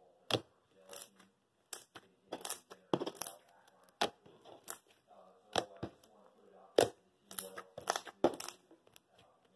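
Crunchy slime being squeezed and pressed by hand, giving about a dozen irregular, sharp crackling crunches.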